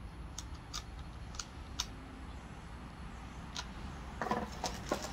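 Scattered light clicks and taps of hard parts being handled while the chain-tension screw of a small battery mini chainsaw is adjusted, about seven in all, two of them close together near the end.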